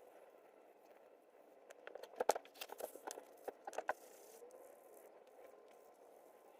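A quick scatter of small clicks and taps over about two seconds, the loudest a little over two seconds in, over a faint steady background hiss.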